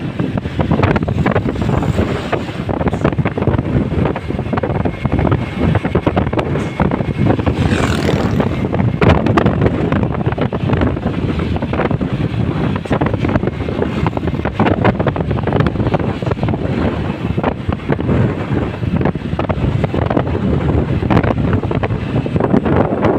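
Loud, steady wind buffeting the microphone over the noise of a moving vehicle on the road.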